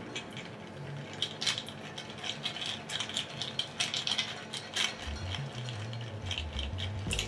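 Ice cubes clinking and rattling against a glass mixing glass as a bar spoon stirs them round, in quick, irregular clinks. The cocktail is being stirred down to chill and dilute it.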